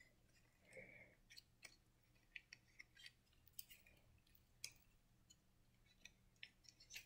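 Near silence with faint, scattered small clicks and ticks: hands fiddling with a plastic zip tie, threading it through holes in a craft-kit part.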